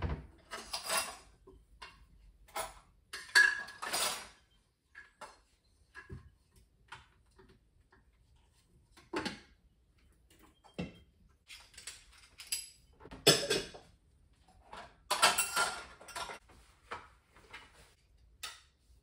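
Dishes, pans and cutlery being handled and put away: irregular clatters, clinks and knocks of crockery and metal utensils, loudest a few seconds in and again about two-thirds through.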